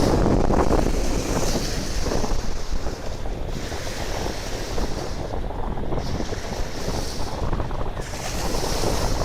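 Sea waves washing onto the shore in a steady surging hiss that swells and eases, with wind rumbling on the microphone.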